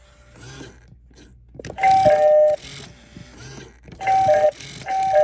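Gemmy eyeball doorbell prop playing its electronic ding-dong chime, a higher note then a lower one, three times: about two seconds in, then twice more in quicker succession near the end.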